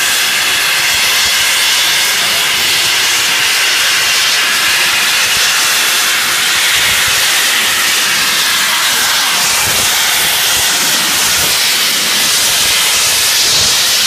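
Steam escaping from the Flying Scotsman, an LNER A3 Pacific steam locomotive, in a loud, steady hiss.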